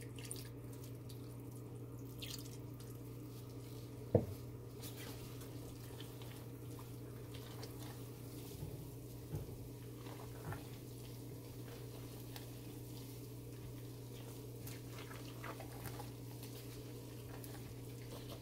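Silicone spatula folding and mashing thick, wet hot-process soap batter in a stainless steel pot while liquid is poured in, giving soft wet squishing and scraping over a steady low hum. One sharp knock about four seconds in.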